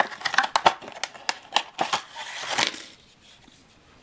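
Clear plastic wrapper crinkling as a cardboard kit box is unwrapped and opened by hand, a run of crackles and clicks that dies away about three seconds in.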